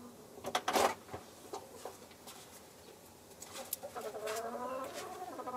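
Hen in a straw nest box giving a drawn-out, wavering low cluck in the second half, after a short scratchy rustle of straw about half a second in.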